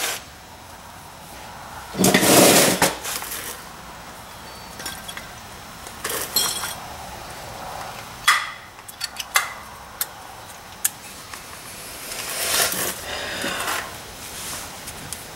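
Metal clinking and scraping as new brake pads and a tool are worked into a front brake caliper bracket, with a louder scrape about two seconds in and several sharp clicks about eight to eleven seconds in.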